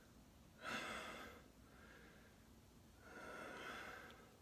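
A man's audible breathing close to the microphone: two soft breaths, one at about a second in and a weaker, longer one near the end.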